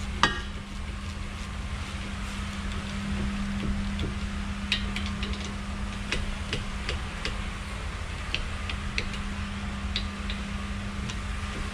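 Hand ratchet clicking in short groups as bolts on the brake caliper assembly are tightened, with a sharp knock at the start, over a steady low hum of shop background noise.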